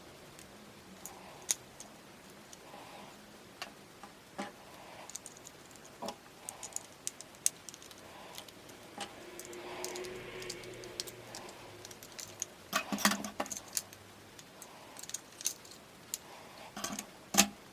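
Plastic Lego pieces clicking and rattling as they are handled and snapped together: scattered sharp clicks, with a denser clatter about two thirds of the way in and a loud click near the end.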